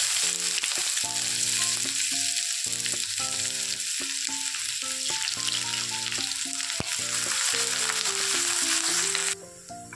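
Chopped onions sizzling as they fry in hot oil in a stainless steel kadai, freshly added. The sizzle cuts off sharply about nine seconds in. Soft background music with a simple melody of held notes plays underneath.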